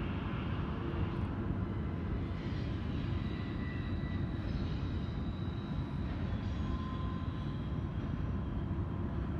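Freight train rolling past with a steady low rumble, and faint thin high tones above it.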